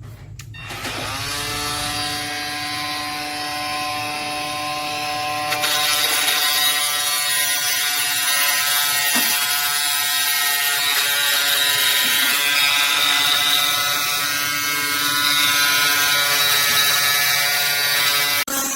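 KIMO 20V cordless oscillating multi-tool running: it winds up quickly to a steady high buzz. About five seconds in it turns louder and harsher, and keeps running with a brief dip near the end.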